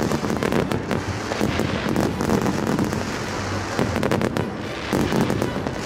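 Fireworks going off: a dense, continuous run of bangs and crackles.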